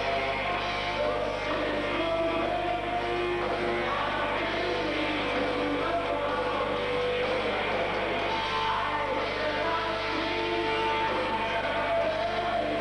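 Heavy metal band playing live: distorted electric guitars and drums, with a sung vocal line over them.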